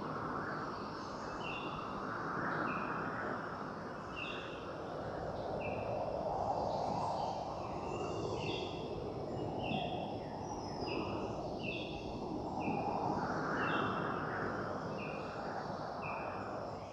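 Outdoor ambience of birds repeating short chirps that step down in pitch, about one a second, over a steady noisy background that swells and sinks. It fades out at the end.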